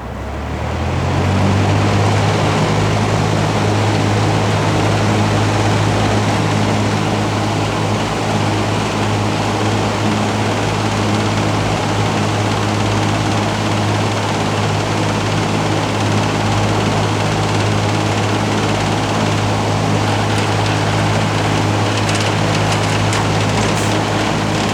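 Vintage all-metal Air King box fan switched on at high speed: its motor hum rises in pitch over the first second or so as the blades come up to speed, then holds steady under a loud rush of air.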